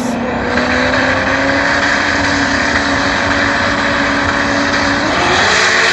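Turbocharged V8 drag cars (a turbo Ford Coyote 5.0 and a big-turbo LS-based engine) held at high revs on the starting line, a steady engine note slowly creeping up. About five seconds in the pitch climbs sharply as the cars launch.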